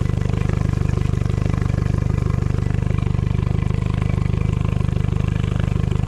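Honda four-stroke outboard motor idling steadily: a low, even hum with a fast, regular pulse.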